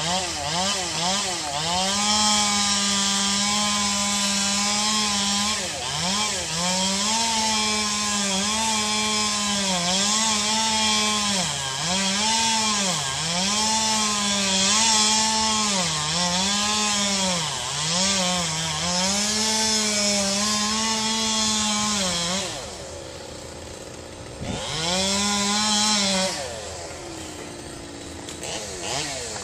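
Two-stroke chainsaw at full throttle cutting wood, its engine note sagging and recovering every second or so as the chain loads up in the cut. It drops to idle, revs briefly once more, then idles again near the end.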